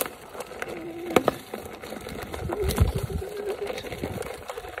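Gotway electric unicycle's hub motor whining steadily while riding a dirt trail, its pitch wavering slightly with speed. Sharp clicks and rattles from bumps, and a brief low rumble about two and a half seconds in.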